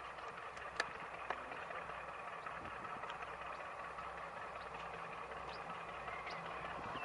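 Class 52 'Western' diesel-hydraulic locomotive running slowly as it draws in, a steady engine and transmission note growing slightly louder, with two sharp clicks about a second in.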